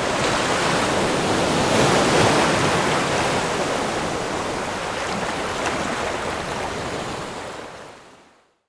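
Ocean surf, a steady rush of waves that swells about two seconds in, then fades out to silence near the end.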